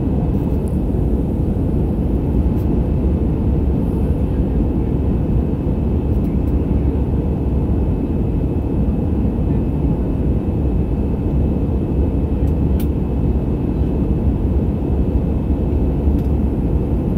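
Steady engine and airflow noise inside a jet airliner's cabin during the climb after takeoff: a deep, even rumble with a faint thin high whine over it.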